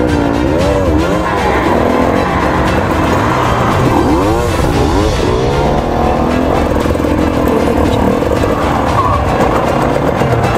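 Background music, with a KTM TPI two-stroke enduro engine revving up and down under it in quick rises and falls, about a second in and again around four to five seconds in.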